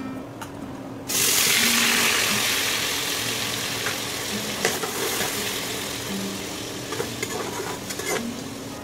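Onion paste dropped into hot oil in a pressure cooker: a sudden loud sizzle about a second in that slowly dies down as it fries, with a spoon clicking against the pot as it is stirred.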